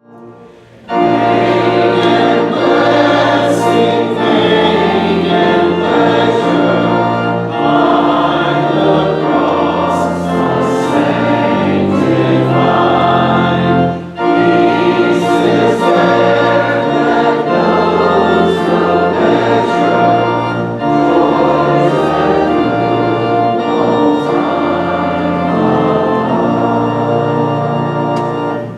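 Church choir singing with organ accompaniment, in long held chords over slowly changing bass notes; it starts about a second in and stops abruptly at the end.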